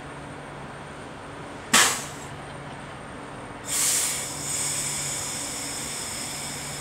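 Train at a station platform releasing air with a short, sharp hiss about two seconds in, then a longer hiss with steady high whining tones from about four seconds in, over a steady low hum: air brakes or air-system exhaust on a train that has just rolled in.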